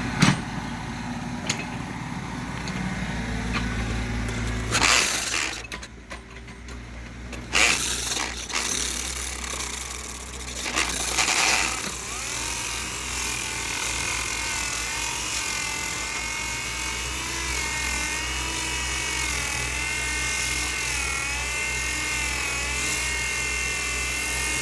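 Power drill boring into the concrete foundation under load. A few loud bursts of grinding come in the first half, then from about halfway a steady whine that wavers up and down in pitch as the motor loads and eases, over a constant low hum.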